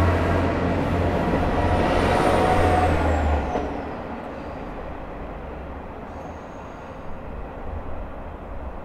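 Diesel railcar of the KANPACHI/ICHIROKU sightseeing train (converted KiHa 47) running with a deep engine hum. About three and a half seconds in, the hum drops away and a fainter rumble goes on, with a high whine falling in pitch around that point.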